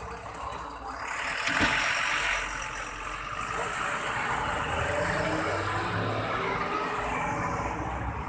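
Road traffic: motor vehicle engines running and passing, the noise swelling about a second in and staying steady.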